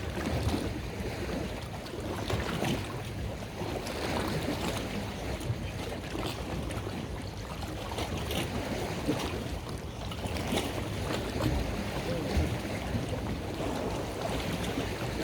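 Wind noise on the microphone over the wash of open water, a steady rushing with low rumble and brief gusty flares.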